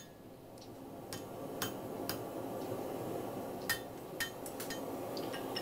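Hand hammer striking hot steel held over a round hardy tool on the anvil, thinning the ends into a scarf for forge welding: sharp metallic clinks, three about a second in and a few more around four seconds, over a steady background rush.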